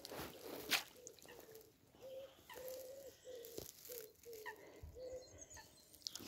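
A wild pigeon cooing: a rhythmic run of short, low, soft notes, one of them held longer, repeated in a phrase. A single sharp click sounds just before the cooing begins.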